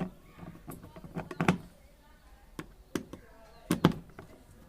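A series of sharp knocks and clicks, the loudest about a second and a half in and just before the end: tools and parts handled while a washing machine's gearbox assembly is being refitted.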